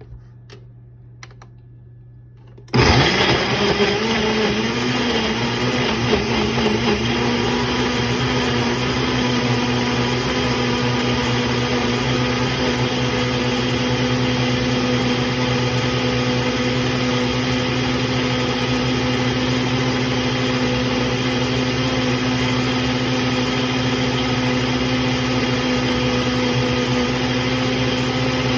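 Countertop blender switched on about three seconds in and running steadily, blending a smoothie of fruit, dates and mixed nuts. Its pitch wavers for the first few seconds and then holds steady.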